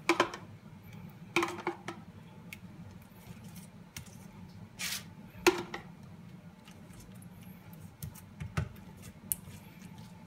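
Kitchen utensils and dishes clinking and knocking several times, as sauce is spooned onto pizza bases, over a steady low hum.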